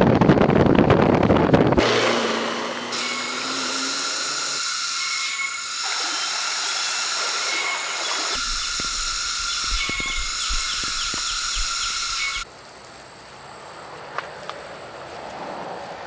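Car driving on a rough track with a rush of road and wind noise for about two seconds. Then a loud, steady, high-pitched insect chorus of several layered tones lasts about ten seconds, cuts off abruptly, and gives way to quieter forest ambience.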